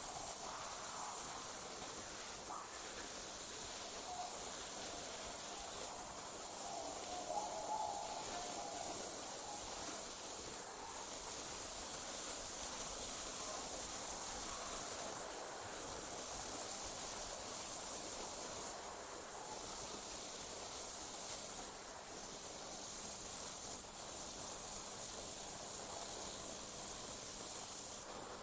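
Night insects trilling in a steady, very high-pitched chorus that breaks off briefly every few seconds and resumes.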